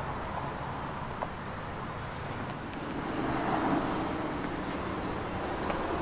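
Steady low engine hum of a motor vehicle, swelling a little about halfway through and then easing off.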